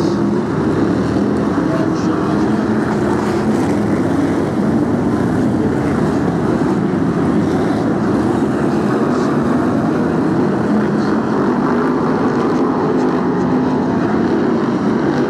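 A pack of BriSCA F1 stock cars racing on a shale oval, their V8 engines running together in a loud, steady mixed din.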